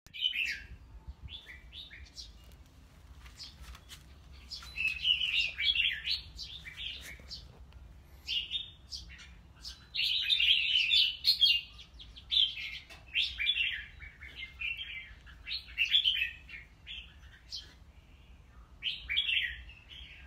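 Caged red-whiskered bulbuls singing and calling: short, bright, chirpy phrases coming in bursts every second or two, with a few faint clicks between them.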